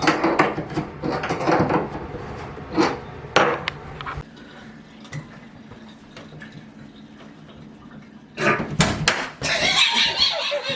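Knocking and clattering in a small tiled bathroom, then sharp loud knocks and, near the end, a hissing rush of water as the newly installed shower is turned on.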